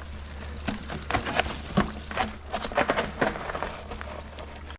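Mountain bike rattling over rough trail: a quick series of metallic clinks and knocks, densest in the middle, over a steady low rumble.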